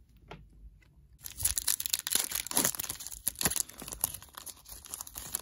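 Foil wrapper of a Panini Prizm basketball card pack being torn open and crinkled by hand, a dense crackling rustle that starts about a second in.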